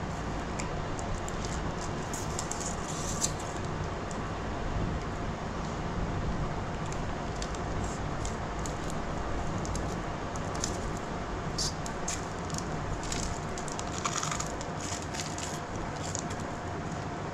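Electric fan running steadily: an even rushing noise with a faint constant hum. Light clicks and rustles of things being handled come and go over it.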